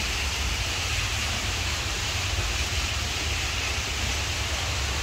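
Small indoor artificial waterfall splashing steadily into a pond, a continuous rush of falling water.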